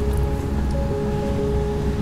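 Background music: held melodic notes changing every half second or so over a steady low bass.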